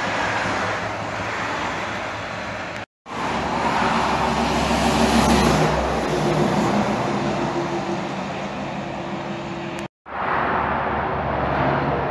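Highway traffic: vehicles, heavy trucks among them, passing with engine hum and tyre noise, loudest about five seconds in. The sound drops out twice for a split second.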